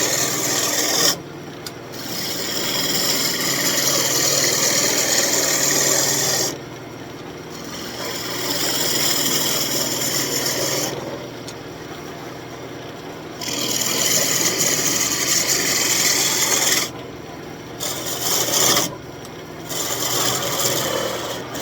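Wood lathe turning an elm spoon blank while a hand tool is held against the spinning wood, giving a rasping scrape in passes of a few seconds each. Between passes only the lathe's steady low hum remains.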